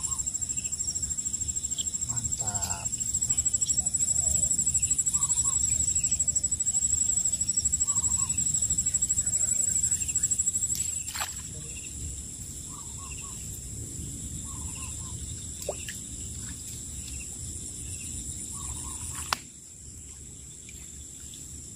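A steady high-pitched chorus of crickets, with short bird calls every few seconds. A low rumble fills the first half, and there are a couple of sharp clicks.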